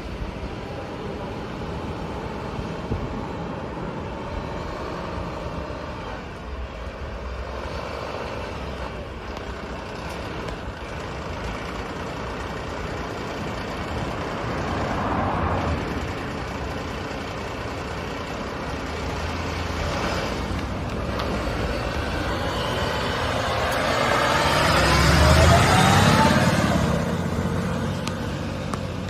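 Motor vehicle engines running. One vehicle passes with a swell about 15 seconds in. A heavy vehicle grows louder and drives close past about 25 seconds in, its engine note rising as it goes by.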